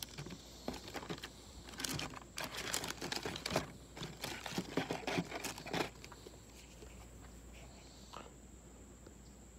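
Plastic lure packaging crinkling and rustling as it is handled, a rapid run of small crackles that stops about six seconds in.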